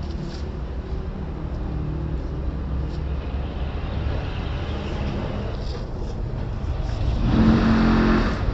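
Steady low engine rumble of machinery running, growing louder for about a second near the end.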